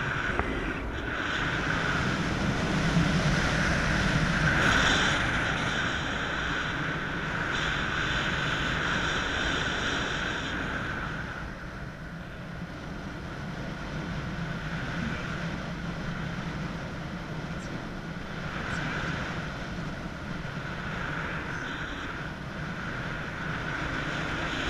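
Wind rushing over an action camera's microphone from the airflow of a tandem paraglider in flight: a steady rush, louder in the first half and easing off about halfway through.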